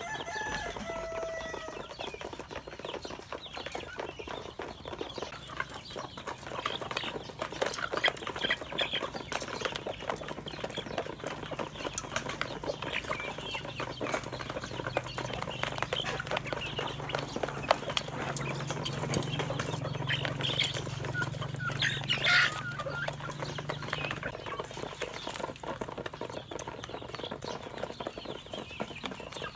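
Young chickens pecking feed from a plastic tray and a metal bowl: a steady patter of beak taps, with occasional soft peeps and clucks and one louder call about twenty-two seconds in. A faint low hum runs through the middle.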